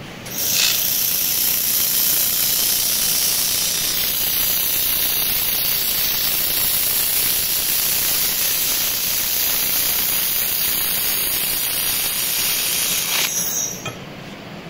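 Handheld laser welding gun running a weld along a steel plate: a steady, loud hiss of gas rushing from the torch nozzle while the beam is on. It starts abruptly just after the beginning and cuts off about a second before the end.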